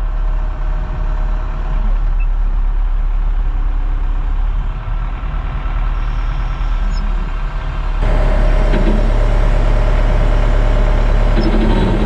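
Cat wheel loader's diesel engine running steadily with a low drone and a held whine, heard from inside the cab. It suddenly gets louder about two-thirds of the way through.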